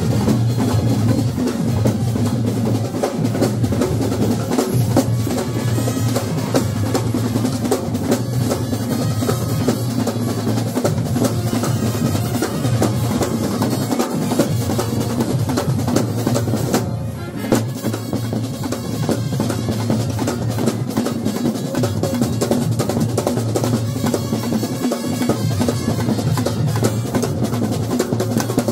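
Street brass band playing: large double-headed bass drums and side drums beating a dense, steady rhythm, with brass horns playing along, dipping briefly a little past halfway.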